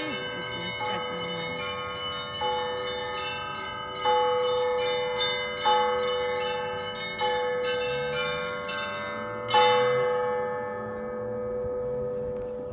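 Russian Orthodox church bells ringing: small bells struck in a quick, rapid pattern over heavier strokes of a larger bell about every second and a half. A last loud stroke comes near ten seconds in, then the striking stops and the bells ring on, fading out.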